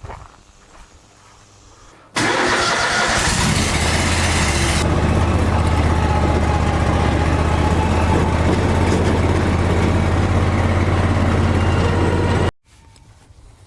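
Engine starting up with a rushing burst and settling into a steady run, then cut off abruptly about ten seconds later.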